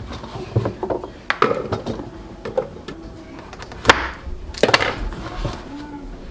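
Kitchen knife knocking on a plastic cutting board while butternut squash is cut into chunks: several sharp knocks, the loudest about four seconds in.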